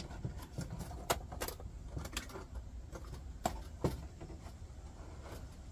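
Light metallic clicks and rattles of a small steel folding candle lantern being handled, a few separate clicks spread through a few seconds.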